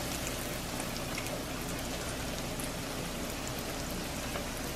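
Hot oil sizzling steadily around battered trout fillets frying in a pan, with faint scattered crackles.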